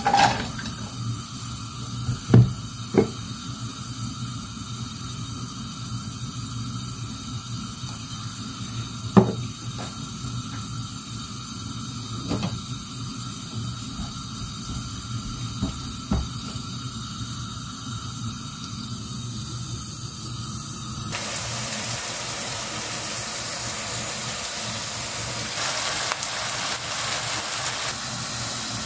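Chopped onions sizzling as they fry in oil in a wok, with a few knocks of the spatula against the pan as they are stirred. About two-thirds of the way through the hiss grows fuller and brighter.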